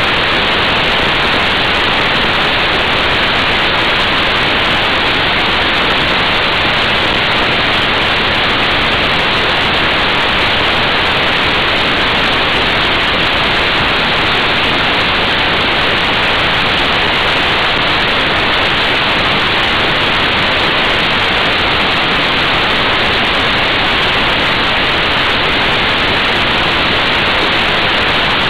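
Steady, loud rush of wind over an action camera's microphone on a Honda Fireblade motorcycle at motorway speed, an even hiss with no breaks.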